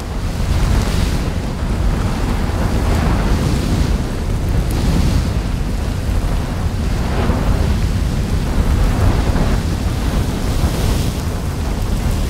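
Added eruption sound effect, not the real sound of the lava vent: a steady deep rumble that swells with a rushing noise about every two seconds.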